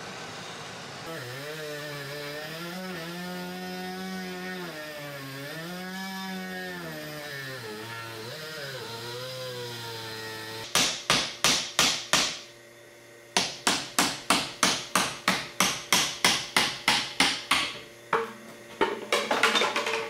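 Hammer blows, about three to four a second in quick runs with short pauses, knocking the plaster cast and tooling plug out of a freshly molded thermoplastic test socket held in a bench vise. Before the hammering starts there is a quieter steady hum that wavers up and down in pitch.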